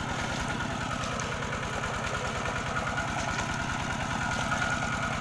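Small engine idling with an even, rapid chugging and a faint steady whine over it.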